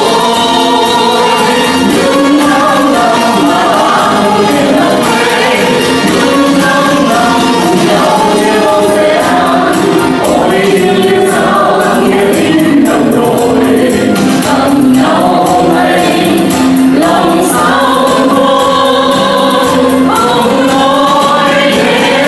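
Mixed men's and women's vocal group singing a Vietnamese song together into handheld microphones, several voices blending without a break.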